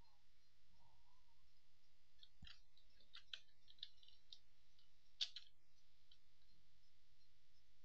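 Faint computer mouse clicks, about half a dozen spread over a few seconds with the sharpest one near the end, over a low steady hum.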